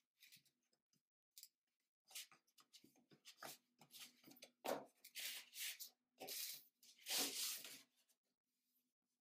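A cardboard sleeve being slid off a rigid presentation box: a series of dry scraping rasps of card rubbing on card, short at first, then longer and louder in the second half. A faint steady low hum runs underneath.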